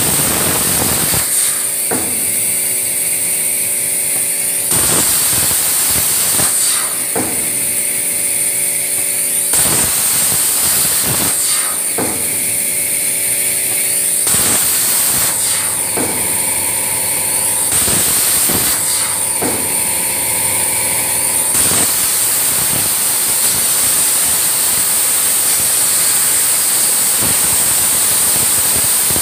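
CNC plasma cutter's 60 A air-plasma arc cutting 1.6 mm aluminium sheet: a loud, steady hiss. Every few seconds the sound changes, with several stretches that carry steady humming tones under the hiss.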